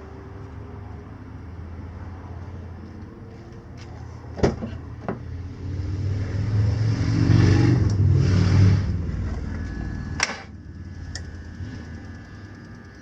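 BMW M54 straight-six being cranked and briefly firing, rising to a loud, uneven run for a few seconds before fading: it catches on only some cylinders, its compression propped up by oil squirted into the bores. A sharp click comes just before the engine picks up and another as it dies away.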